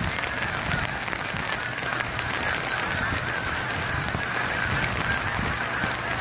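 A large flock of geese flying overhead, honking continuously in a dense overlapping chorus, with wind rumbling on the microphone underneath.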